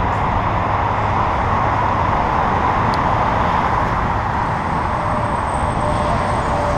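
Steady rushing noise of a bicycle ride: wind on the camera microphone and tyres rolling over wet pavement.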